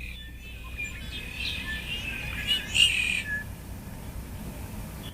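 Stock birdsong ambience recording: many small birds chirping and trilling over a steady low background rumble, busiest about halfway through.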